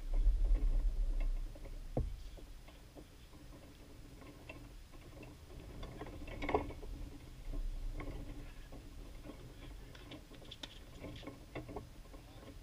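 Tennis balls being struck with rackets and bouncing on a hard court: sparse short knocks and ticks, the loudest about six and a half seconds in and several close together near the end. Wind rumbles on the microphone for the first second or so.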